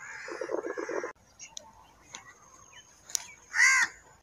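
A crow calls one loud, harsh caw about three and a half seconds in. Before it, a stretch of busy chattering cuts off abruptly about a second in.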